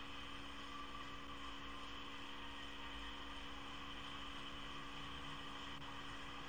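Steady electrical hum with several constant tones over an even hiss, unchanging throughout; no clear music or skate sounds stand out.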